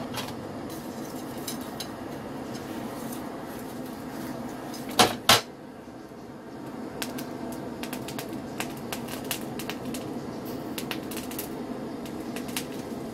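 Coal forge fire burning with a steady rush and scattered sharp crackles from the coals. Two loud knocks about five seconds in, as the steel tongs are set down on the hearth.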